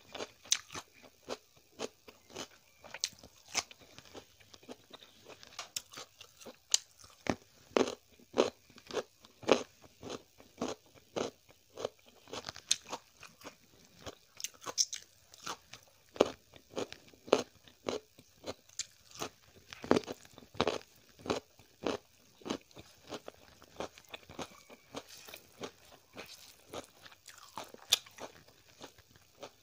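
Close-miked chewing and crunching of a hand-eaten mouthful of rice and cooked greens: many sharp, irregular crunches, one to three a second.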